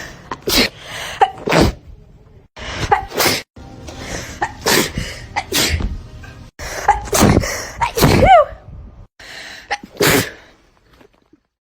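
A rapid string of sneezes from different people, about a dozen in all, each a sharp burst of breath. Some end in a voiced 'achoo' that slides in pitch, and there are abrupt breaks between them.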